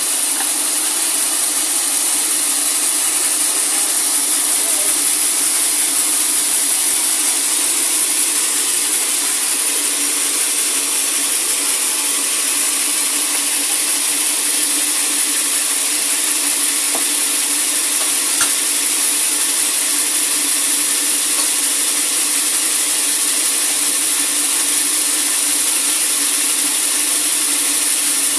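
Sawmill saw cutting through a large teak log, running steadily with a strong high hiss over a low, even hum.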